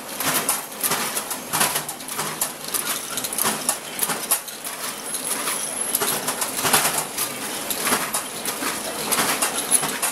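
Egg grading line running, eggs rolling on the roller conveyors and clicking and clattering against each other and the machine parts in a dense, irregular stream of light knocks.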